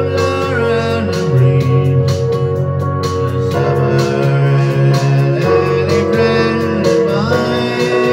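A man singing a slow pop ballad into a microphone while accompanying himself on an electronic keyboard, with held vocal notes that slide in pitch between phrases.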